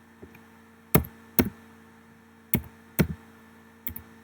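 Sharp clicks from a computer mouse and keyboard being worked: about five separate clicks, loosely in pairs, over a low electrical hum.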